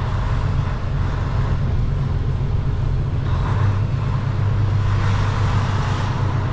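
Steady low drone of a semi truck's diesel engine with road and tyre noise, heard from inside the cab while driving.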